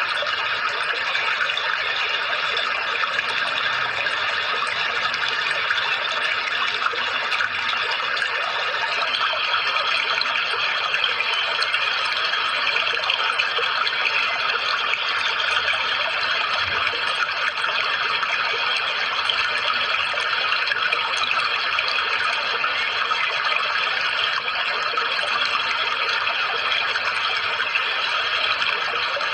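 Steady running water, an even splashing, trickling rush with no breaks.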